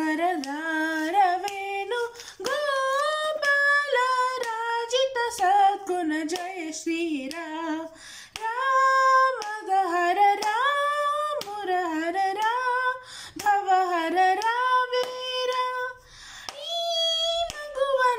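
A teenage girl singing a Carnatic swarajati in raga Bilahari, solo voice, in long gliding phrases with short breaths between them.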